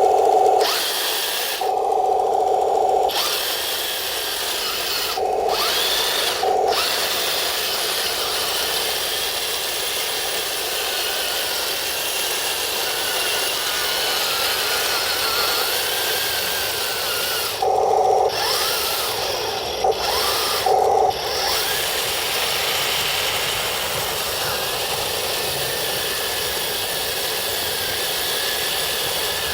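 RC model M26 tank with metal tracks driving off-road: the electric drive motors and gearboxes give a steady power-tool-like whine that wavers in pitch. Six short bursts of a lower buzz break in, mostly in the first seven seconds and again around the middle.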